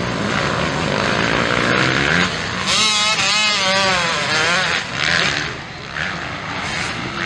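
Motocross dirt bike engines racing on the track, revving up and down through the corners. One bike is loudest about three seconds in, its engine pitch wavering up and down for a couple of seconds before fading.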